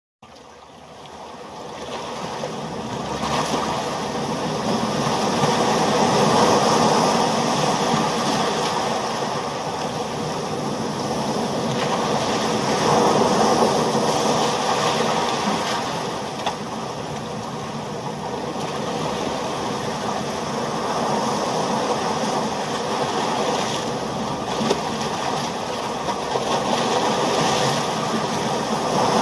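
Ocean waves and surf, a continuous rushing wash that swells and ebbs every several seconds. It fades in over the first couple of seconds.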